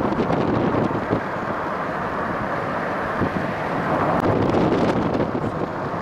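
Steady rushing road and wind noise of a moving vehicle, with wind buffeting the microphone.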